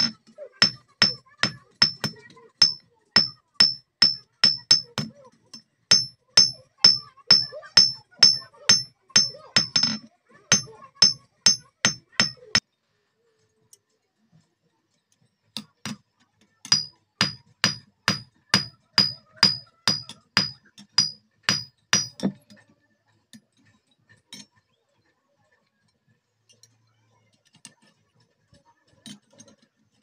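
Hand hammer forging a hot steel bar for a tong arm on a steel anvil block, steady blows about two and a half a second, each with a bright high ring. The blows stop about twelve seconds in, start again after a pause of about three seconds for some six seconds more, then give way to a few light clinks of metal being handled.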